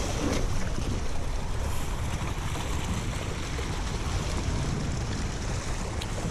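Steady rushing water with wind buffeting the microphone, heaviest in the low rumble, and a short click near the end.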